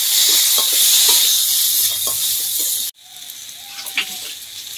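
Tomato pieces and green chillies sizzling in hot oil with fried green banana and potato in an aluminium kadai, stirred with a metal spatula that scrapes lightly now and then. The loud sizzle cuts off suddenly about three seconds in and carries on more quietly.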